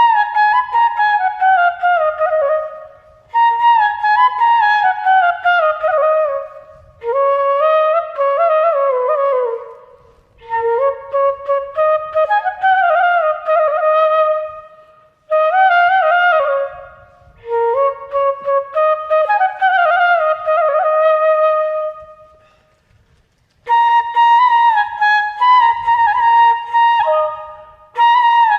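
Flute ringtone melody: short phrases of sliding notes, mostly falling, separated by brief pauses. After a longer pause about two-thirds of the way through, it turns to quicker repeated notes.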